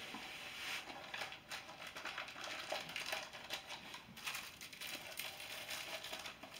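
Packaging rustling and crinkling with irregular small clicks as a pair of sunglasses and their case are handled and packed back up.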